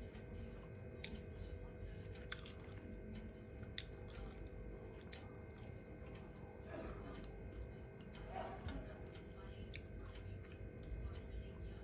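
A person chewing and biting food close to the microphone, with scattered small crunches and clicks, over a faint steady hum.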